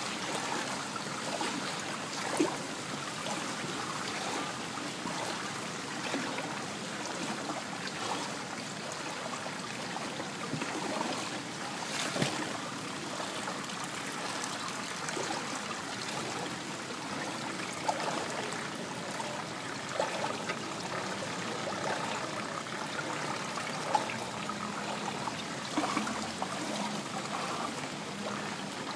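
Floodwater rushing and sloshing steadily after heavy rain, with a few sharp splashes at irregular times.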